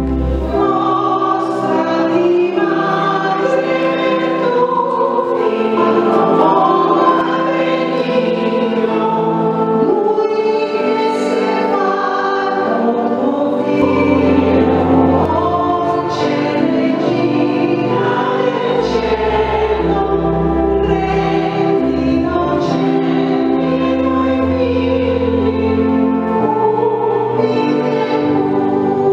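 A small choir singing a hymn in a church, with low held accompaniment notes coming and going underneath.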